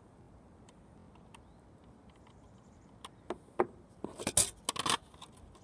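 Faint room noise, then a quick series of sharp clicks and rattles from about three seconds in: hands handling the System Sensor P2RL horn strobe while its setting is being changed. The alarm tone itself is not sounding.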